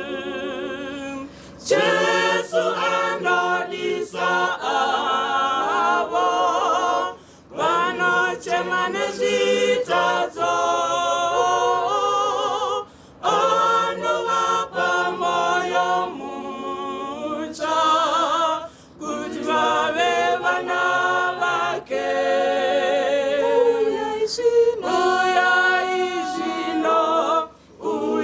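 Church choir singing a hymn a cappella in harmony, with no instruments. The singing comes in phrases that break briefly about every five or six seconds.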